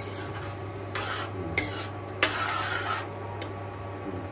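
A cooking utensil stirring and scraping food in a pot of pulao: two longer scrapes, the second starting with a sharp clink.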